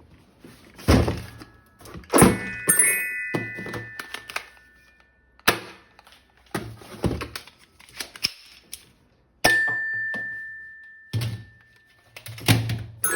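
A string of sharp plastic knocks and thunks mixed with short electronic chime and beep tones, one tone held steady for about a second and a half after the middle, from a toy M416 gun being handled and set off.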